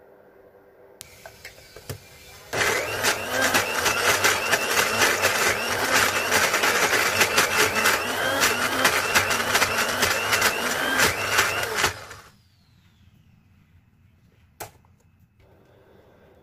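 Small electric blender chopping red chilies in its jar. A few faint clicks come first, as the lid is seated. The motor then runs loudly for about nine seconds, with chunks rattling against the blade and jar, and stops abruptly. A single click follows a couple of seconds later.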